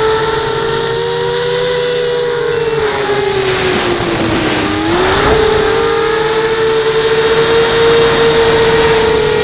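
Brushless motors and 5-inch propellers of an FPV quadcopter, heard through its onboard camera: a steady high whine. About four seconds in, the motors slow and the pitch dips, with a rush of air, then the pitch climbs back.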